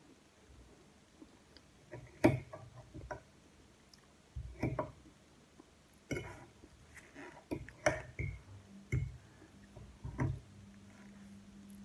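Metal fork clinking and scraping on a ceramic plate while scooping up food, about six sharp clinks a second or two apart, with soft chewing sounds between. A low steady hum comes in near the end.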